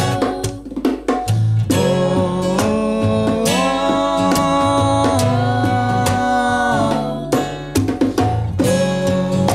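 Live acoustic band music: strummed acoustic guitar and hand-played bongos under several voices singing long held notes together in harmony.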